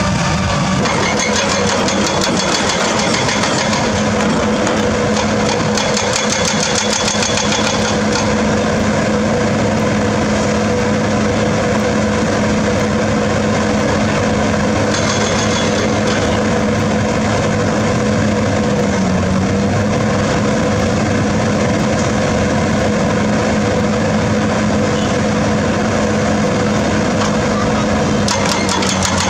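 Heavy diesel engine of construction machinery, a drilling rig or excavator, running steadily with a constant hum. Its pitch dips briefly about two-thirds of the way through.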